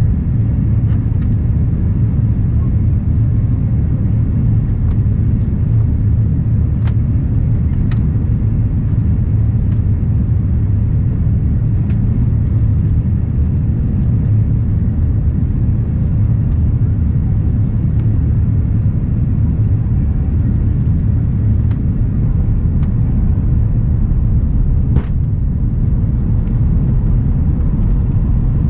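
Steady low rumble of cabin noise inside an Airbus airliner descending through thick cloud, with a few faint clicks.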